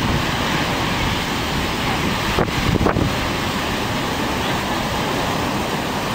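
Heavy storm surf breaking and washing up a beach, with strong wind buffeting the microphone. A brief cluster of louder bumps comes about two and a half seconds in.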